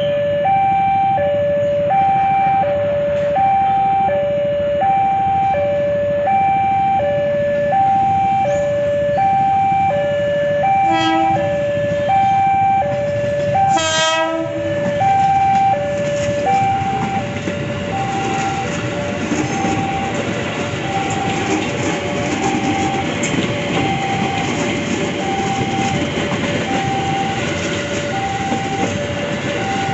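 Level-crossing warning alarm chiming a slow alternating two-tone 'ding-dong' throughout as a KRL Commuter Line electric train (ex-JR 205 series) approaches. The train sounds two short horn blasts near the middle, then its wheels rumble and clatter on the rails as it passes.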